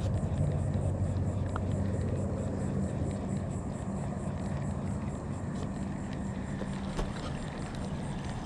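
A motorboat engine running steadily with a low hum that fades slightly toward the end.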